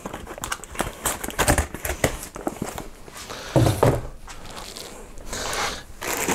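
Cardboard boxes and plastic packaging being handled: rustling, crinkling and small taps, with a brief louder bump a little past halfway.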